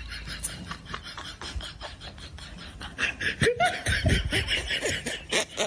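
A man laughing: a rapid run of short laughs that grows louder about three seconds in.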